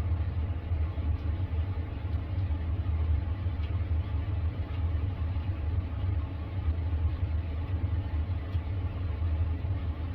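Electric water heater tank filling with water after the supply is turned back on: a steady low rumble of water rushing in.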